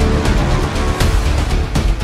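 Soundtrack music with a heavy low end and repeated sharp percussive hits.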